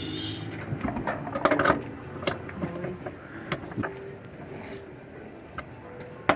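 Wrench clicking and knocking irregularly against metal while the bolts holding a washing machine's brake actuator are tightened.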